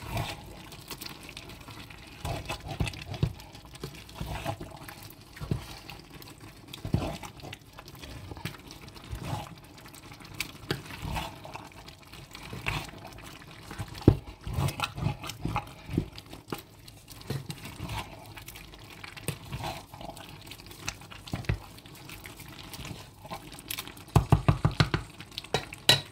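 Thick egusi soup simmering in a pot, with irregular plops and pops over a low bubbling. There is a sharp click about halfway and a quick run of knocks near the end.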